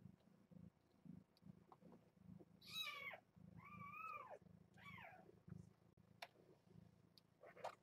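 Three-week-old kittens mewing: three high, falling mews in quick succession around the middle, and one more near the end, over a faint low purring.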